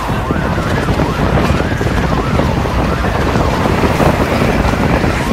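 Wind buffeting the microphone: a loud, steady low rumble with no clear events.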